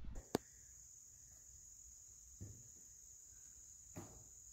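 Faint, steady, high-pitched insect chorus, with two faint soft knocks, one about halfway through and one near the end.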